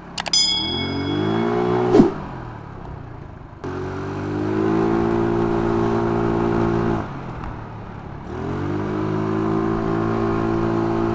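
Yamaha Mio Sporty scooter's engine pulling hard under throttle: its pitch climbs, then holds steady as the automatic transmission takes up. It eases off about two seconds in and again near seven seconds, each time pulling back up to a steady high note. A few sharp clicks and a short chime sound near the start.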